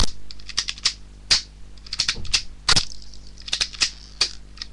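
Toy BB gun being cocked and fired over and over: about a dozen sharp plastic clicks and snaps at an uneven pace.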